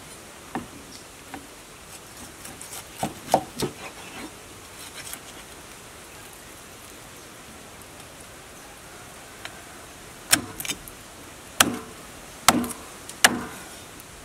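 Meat cleaver chopping raw pork ribs on a round wooden chopping block: sharp chops in a cluster about three seconds in, then another run of chops near the end.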